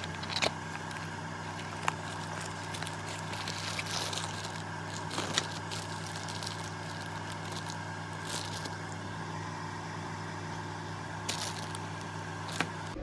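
Clear plastic bag crinkling and rustling as a new oxygen sensor is handled in it and unpacked from its cardboard box, with a few sharp clicks, over a steady background hum.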